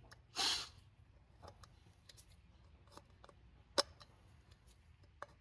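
Modified pliers clicking faintly against the cut end of an aluminum intercooler pipe as they press dimples into it, raising a bead to hold the boost boot on. There is one sharp click a little before the end and a short hiss about half a second in.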